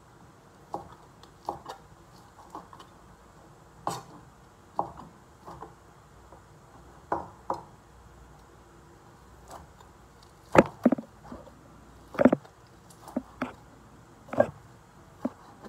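Kitchen knife chopping food on a cutting board: irregular sharp knocks, about one to two a second, with the heaviest strikes in the second half.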